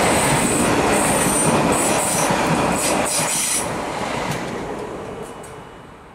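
Stadler FLIRT III electric multiple unit passing at speed: rushing wheel and rail noise with a high-pitched wheel squeal that comes and goes, then fading away over the last two seconds as the train leaves.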